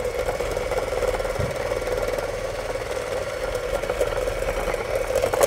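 Electric hand mixer running steadily, its twin beaters whipping soft butter and egg yolk in a stainless-steel bowl; a constant motor hum.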